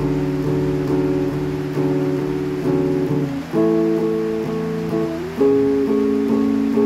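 Acoustic guitar playing chords in a steady rhythm, struck again about every half second, moving to a new chord about three and a half seconds in and again about five and a half seconds in.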